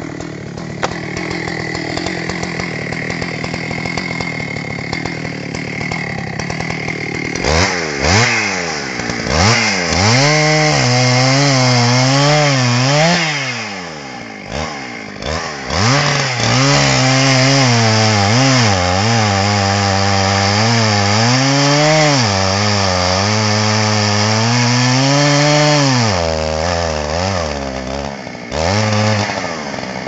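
Two-stroke chainsaw running at a low, steady speed, then revved up about seven seconds in and held at full throttle while cutting into the base of a tree trunk. The engine note rises and falls repeatedly and dips briefly partway through. It drops back toward idle near the end.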